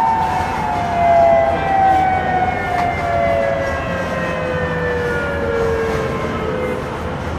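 A siren winding down: two close tones slide slowly and steadily lower in pitch together, fading a little near the end.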